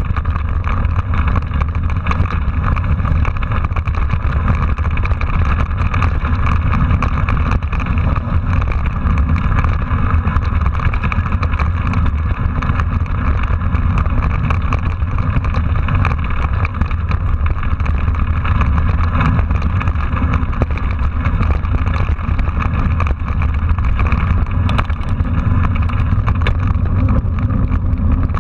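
Mountain bike riding fast over dirt and rough road, heard from a handlebar-mounted camera: steady wind rumble on the microphone with a constant fine rattle and tyre noise from the bike on the rough ground.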